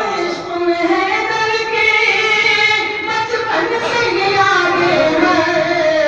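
A young man's solo voice singing devotional verses in Urdu-Hindi into a microphone, in long melodic phrases with held, gliding notes.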